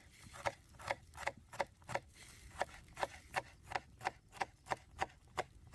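Kitchen knife chopping food on a cutting board, a steady run of sharp taps about three a second.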